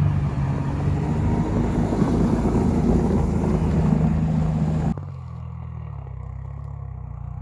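Small tracked all-terrain vehicle's engine running steadily as the vehicle moves off slowly over snow. About five seconds in, the sound drops abruptly to a fainter engine as the vehicle is heard from farther away.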